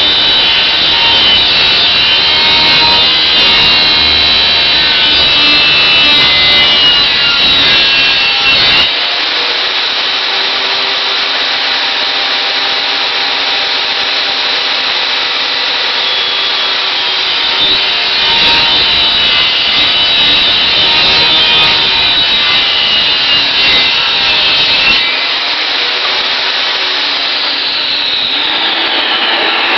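Table saw running with a steady high whine, its blade cutting through wood. Near the end the motor is switched off and the whine falls in pitch as the blade spins down.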